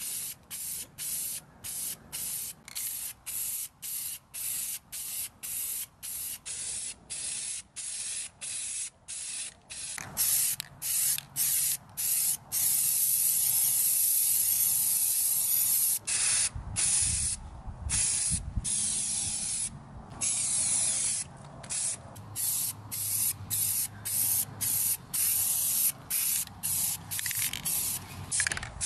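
Aerosol spray paint can hissing in short bursts, about two a second, then in one long spray of about three seconds midway, then in short bursts again.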